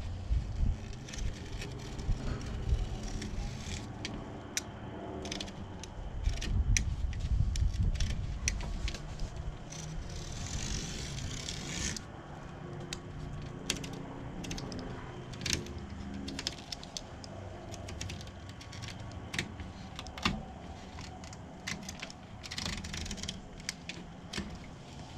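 Scattered clicks, taps and handling noises from hand work on a door screen and its frame, over a steady low rumble, with a brief hiss about ten seconds in.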